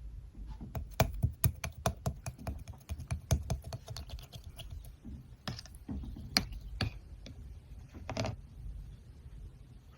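A slime called grape konjac jelly being squeezed and pressed by hand, giving a quick run of sharp clicks and pops that thins out after about five seconds into a few scattered clusters.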